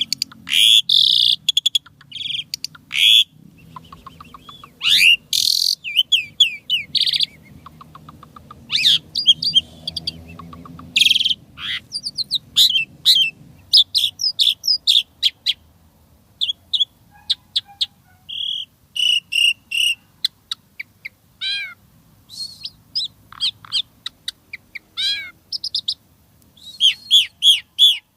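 Asian pied starling (jalak suren) singing a long, varied song: loud sharp whistles, chirps and quick rattling runs of notes in short phrases with brief pauses between them, including mimicked phrases from its learned repertoire.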